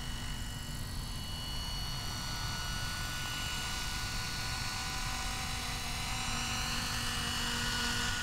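Electric RC model helicopter, a Minicopter Heli-Baby with a Plettenberg electric motor, flying: a steady whine of motor and rotors, growing louder toward the end as it comes closer.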